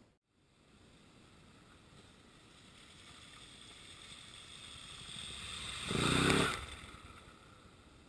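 Suzuki DR650 single-cylinder dual-sport motorcycle riding through a shallow creek. Its engine grows steadily louder as it approaches, peaks with a rush of engine and splashing water as it passes close about six seconds in, then fades quickly.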